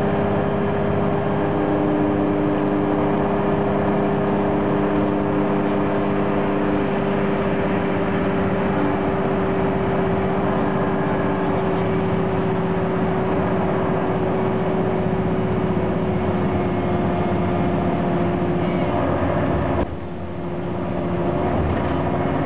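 2002 Orion V transit bus, heard from inside the passenger cabin, running steadily at speed: the Cummins ISM diesel and Voith D863.3E automatic transmission under way with a steady whine and road noise. About twenty seconds in the sound drops suddenly, then builds back up.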